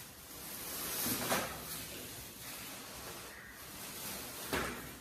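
Plastic shopping bag rustling and crinkling as it is handled and rummaged through, with a louder rustle about a second in and another near the end.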